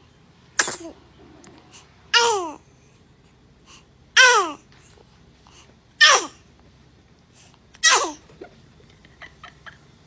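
A run of five baby sneezes about two seconds apart. Each is a sudden loud burst, and most end in a short squeaky voice that falls in pitch.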